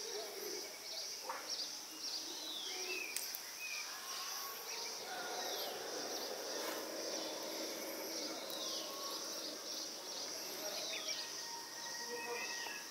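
Rural outdoor ambience: a steady high insect drone, with a bird repeating a short falling whistle every second or two among other faint chirps.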